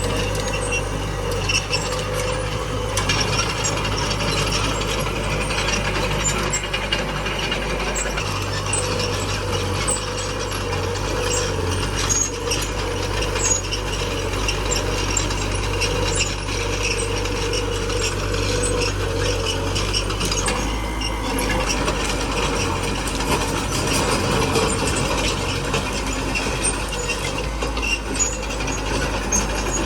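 Small crawler bulldozer working: its diesel engine runs steadily under a continuous metallic clatter and rattle from the running gear.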